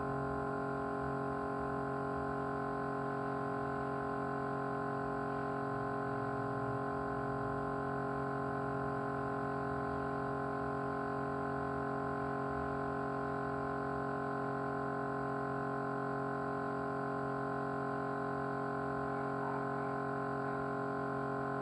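Small motor running at a constant speed with a steady vibrating hum that does not change.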